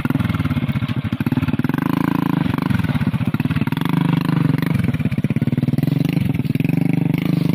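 A small step-through motorcycle's engine running under a heavy load of oil palm seedlings, its revs rising and falling as it is worked over rough ground.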